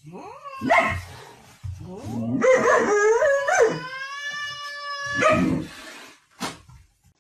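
A dog howling: a short rising call, then a longer call that wavers in pitch before settling into one held note for about a second and a half. A short sharp click near the end.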